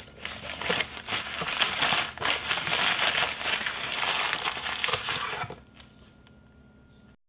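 Brown paper crinkling and rustling as it is folded by hand around a block of cheese. The crinkling stops about five and a half seconds in.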